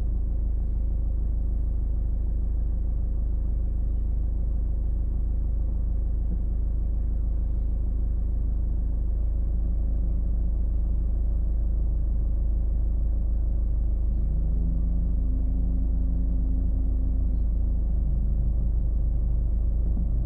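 Car driving on city streets: a steady low road and engine rumble. From about halfway a humming engine tone comes in, and its pitch steps down near the end.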